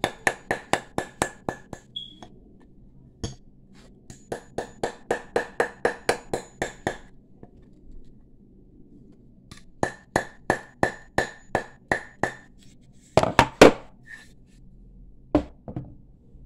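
Hammer blows on a thin brass bangle seated on a wooden bangle mandrel, driving it down the taper to shape its curve. The blows come in three quick runs of about four to five a second, each with a bright metallic ring, followed near the end by a louder cluster of knocks and one last single knock.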